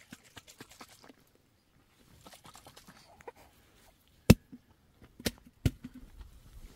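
Faint scattered ticking, then three sharp clicks in the second half, the first much the loudest.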